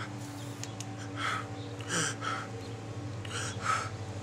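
A man gasping and breathing hard in several short breathy bursts, as if in shock, over a steady low hum.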